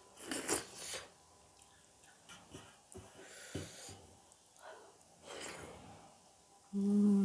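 Close-miked eating by hand: slurping food off the fingers and heavy breaths, with small clicks of fingers and food on a steel plate. Near the end comes a short, loud, steady hummed 'mmm'.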